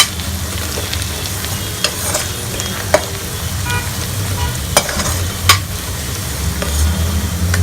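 Onion, garlic and spices sizzling steadily in hot oil over a high flame, with a spoon stirring and knocking sharply against the pan about five times. A low steady hum runs beneath.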